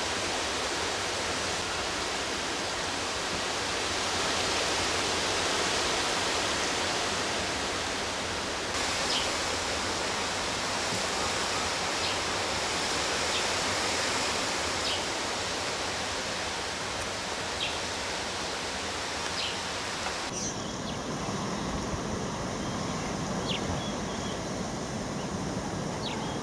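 Steady hissing outdoor bush ambience with short, faint high chirps now and then. The background changes abruptly twice, about a third of the way in and again later.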